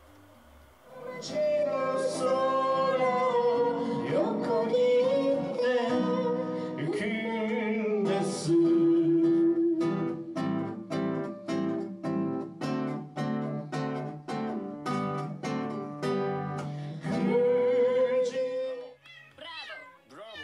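A man singing to his own acoustic guitar. In the middle the guitar is strummed in even strokes about twice a second, and near the end a cat starts to meow.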